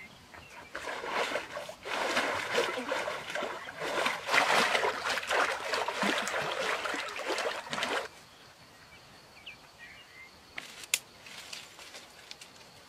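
Water splashing and sloshing as a person moves about in a stone pool, cutting off suddenly about eight seconds in. After that a few sharp clicks.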